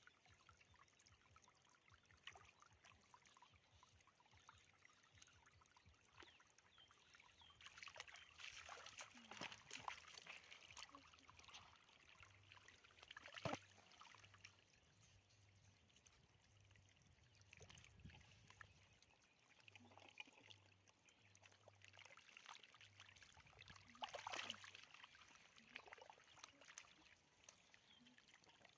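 Faint splashing and trickling of shallow water, with louder splashes about eight to eleven seconds in and again near the end, and one sharp slap in the middle.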